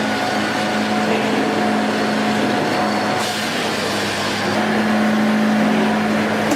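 Engine of a wood-processing machine running steadily with a constant hum. About three seconds in there is a brief surge of higher-pitched noise, and the hum shifts a little about halfway through.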